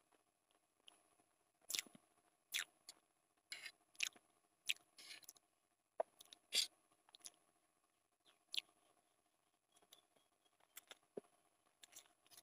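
Close-miked mouth sounds of eating instant Maggi noodles: about a dozen short, irregular wet smacks and slurps as forkfuls of noodles are taken in and chewed.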